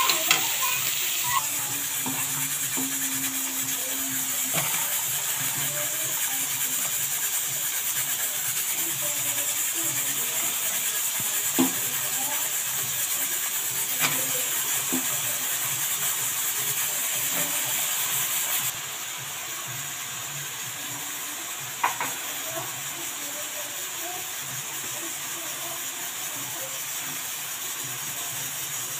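Onion-tomato masala sizzling in a kadhai as it fries, with a few sharp knocks on the pan. The sizzle drops suddenly to a lower level about two-thirds of the way through.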